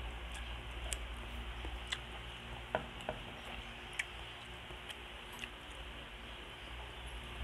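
Close-miked eating: chewing fried fish and rice, with scattered sharp wet mouth clicks and smacks about once a second over a steady low hum.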